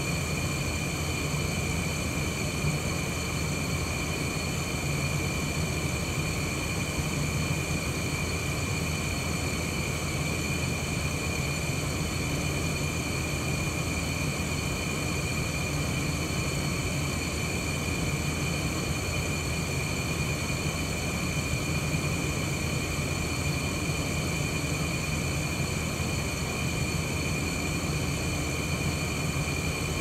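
Window air conditioner running steadily: an even rush of air from its fan over a low hum, with a steady high tone on top.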